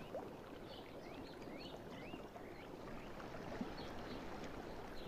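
Faint steady background hiss with a few faint, short high chirps in the first half.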